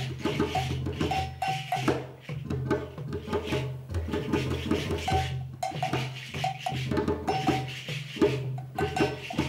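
Polyrhythmic West African percussion: djembe hand drums played over a deep bass drum, with short repeated bell notes and the hiss of a shekere shaker.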